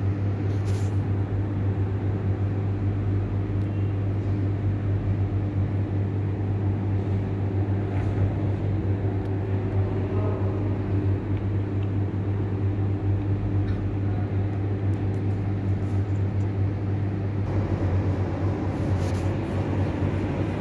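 A steady low hum with faint higher overtones, unchanging throughout, with a few faint ticks.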